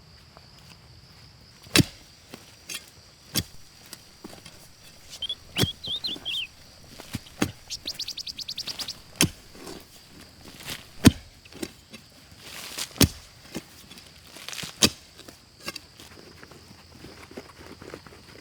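A series of sharp knocks or thunks, irregularly spaced about every one and a half to two seconds, over a steady high insect drone, with a brief run of chirps about five seconds in and a rapid rattle of clicks about eight seconds in.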